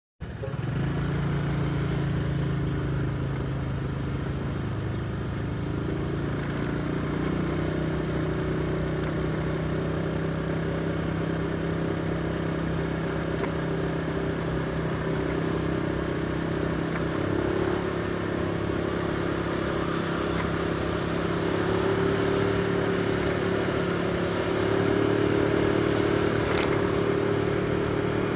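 A motor vehicle's engine drones steadily over road noise while driving. It grows a little louder and higher in pitch in the last several seconds.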